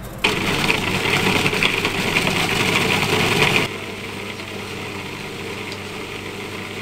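Countertop food processor motor running at full speed, chopping English muffin into breadcrumbs. About three and a half seconds in the sound drops abruptly to a quieter steady whir.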